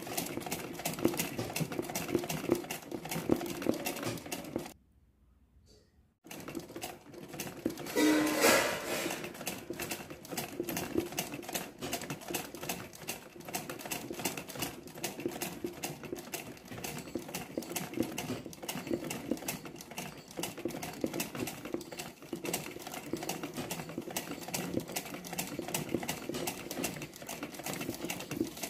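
Sewing machine running fast for free-motion embroidery: a rapid, even clatter of needle strokes over the motor's hum. It stops briefly about five seconds in, starts again a second later, and is loudest for a moment about eight seconds in.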